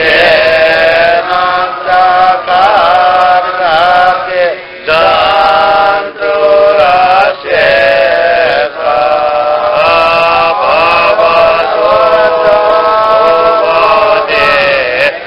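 Buddhist devotional chant sung in long held notes, phrase after phrase with short breaks between them.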